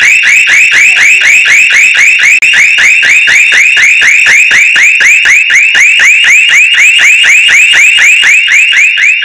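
Loud electronic alarm sounding without a break: rapid high-pitched warbling chirps, about four or five a second.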